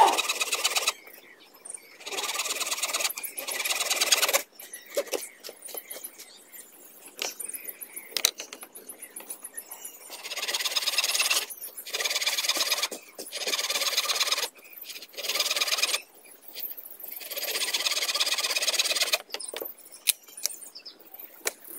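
A sickle blade scraping along bamboo strips in a string of strokes, each a second or so long with short pauses between, and a few sharp taps of bamboo on bamboo in the gaps.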